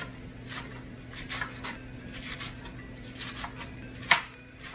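Knife slicing through a head of lettuce onto a cutting board: quick, irregular cutting strokes a few times a second, one louder chop about four seconds in, over a faint steady hum.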